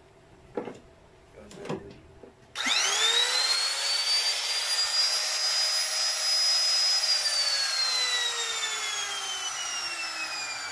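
A few handling knocks, then about two and a half seconds in the Lotus LTPR550X palm router's brushed motor is switched on and whines up to full speed within a second. It runs steadily with no bit fitted and no load, a motor sound the owner calls good, then is switched off about seven seconds in and winds down with a steadily falling whine.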